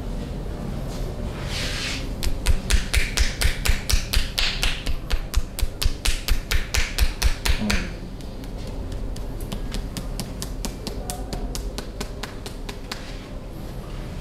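Rapid, even percussive massage strokes striking the body, about four sharp claps a second. They are loudest for the first half and then go on more softly.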